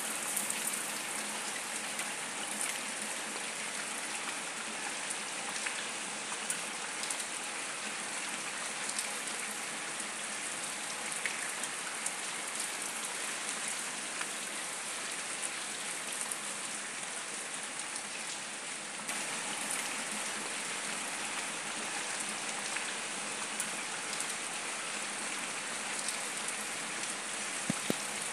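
Steady rain falling on wet paving stones, with scattered single drops ticking close by.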